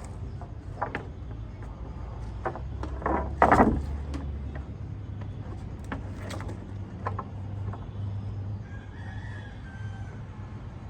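A rooster crows once, about three seconds in, over scattered sharp knocks and a steady low hum.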